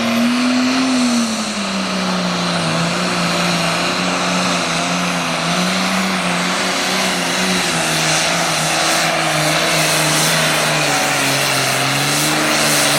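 Modified diesel farm tractor engine at full throttle under load in a pull. The pitch lifts briefly, then sags after about a second as the load bites, and wavers there for the rest of the run.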